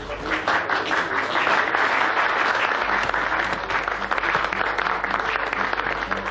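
Audience applauding, the clapping swelling about half a second in and holding steady.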